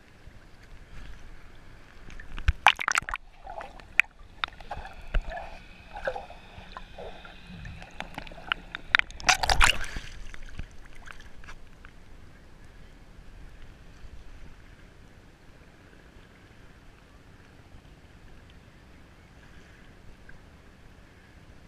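Small sea waves sloshing and gurgling around a camera held at the water's surface. There are louder splashes about two and a half seconds in and again near ten seconds, then quieter lapping.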